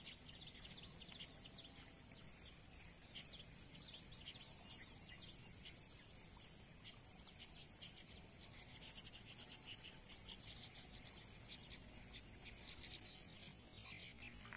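Faint outdoor ambience: a steady high-pitched insect drone, with many short chirps from birds or insects scattered over it and a brief burst of chirps about nine seconds in.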